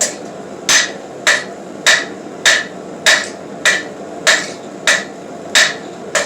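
Steady hammer blows on hot steel being drawn out, about eleven strikes at a bit under two a second, each with a short metallic ring.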